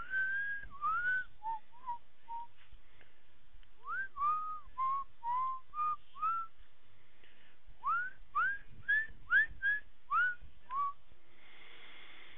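A person whistling a tune in three short phrases of clear notes, most of them sliding up into their pitch, with brief pauses between the phrases.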